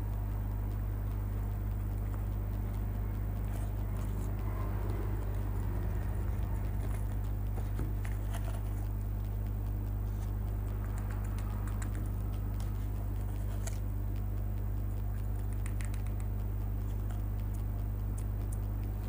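Light rustling and scattered small ticks of dry powder being poured and tapped into a short metal pipe, over a steady low hum.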